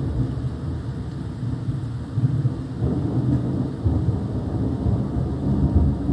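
Thunder rolling: a long, deep rumble that swells in several surges, loudest near the end.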